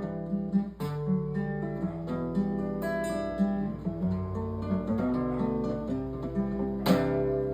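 Acoustic guitar (violão) playing alone: a run of picked notes, then a fuller strummed chord near the end that is left ringing, closing the hymn after the singing has stopped.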